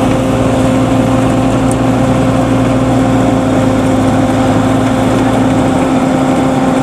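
Homemade Vietnamese combine harvester's engine running steadily while cutting rice, under heavy rain that hisses over everything. Its lowest hum drops away near the end.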